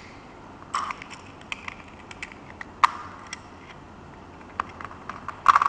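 Light, irregular clicks and small rattles of a plastic keychain tape measure, its metal screwdriver bits and key ring being handled, with the sharpest clicks about a second in, near three seconds and near the end.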